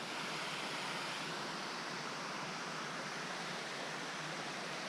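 Steady rush of water flowing down a creek below a lake spillway.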